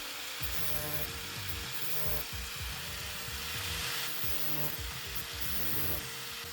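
Background music over a power tool running steadily, with a grinding, rubbing noise.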